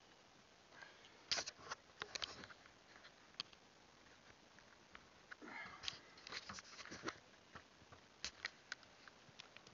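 Faint handling noise on a small camera: scattered sharp clicks and crackles, in two clusters about a second in and again around the middle, then a few single clicks near the end, over a quiet background.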